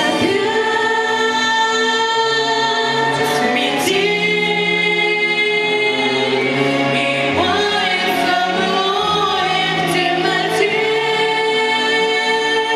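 Music with choral singing: long held sung notes that change pitch every second or so, over an accompaniment.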